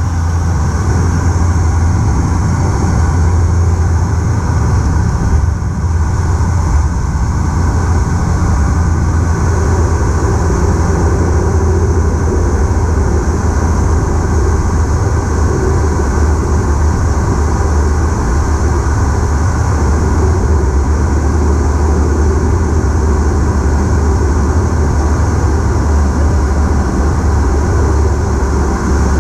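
Cabin noise of a Bombardier Q400 turboprop during landing and rollout, heard at a window seat beside the engine: a loud, steady low drone from the six-bladed propeller, mixed with engine and airflow noise.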